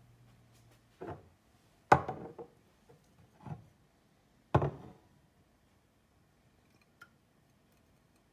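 Glass mixing bowls being handled and set down on a countertop: four knocks and clinks over the first five seconds, the loudest about two seconds in, then a faint click near seven seconds.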